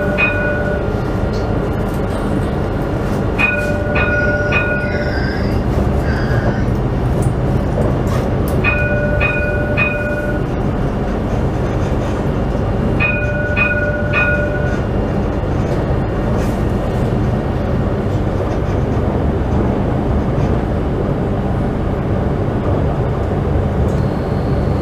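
Alstom Citadis tram running, heard from the driver's cab: a steady rumble and hum of wheels on rail and traction gear. Its warning chime sounds three times in the first 15 seconds, each time three quick high notes over a held lower tone, as it crosses an intersection.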